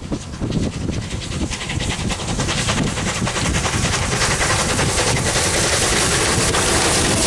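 Rebuilt Bulleid Battle of Britain class three-cylinder steam locomotive working a passenger train, a fast run of exhaust beats over a rumble, growing steadily louder as it approaches.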